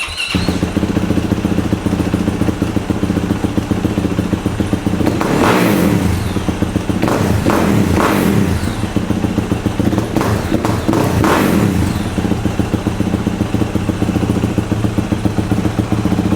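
Yamaha YZ450F's single-cylinder four-stroke dirt-bike engine, fitted with an FMF 4.1 RCT titanium slip-on exhaust, idling. It is revved up and back down several times in the middle, then settles back to a pulsing idle. The exhaust note is deep and aggressive.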